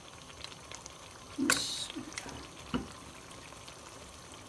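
Cooking sounds at the karahi pot: a short, loud hiss about a second and a half in, like something going into the pot, then a few light clicks and a sharp knock.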